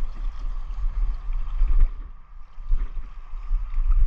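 A low, uneven rumble of wind on the microphone over river water moving at the shoreline.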